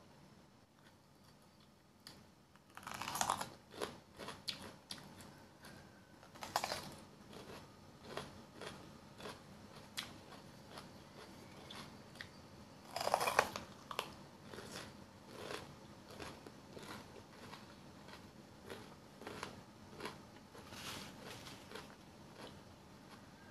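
Crunchy bites into a raw green bell pepper, followed by chewing. The loudest crunches come about three seconds in, at six and a half, at thirteen and again near the end, with smaller crunches and mouth clicks in between.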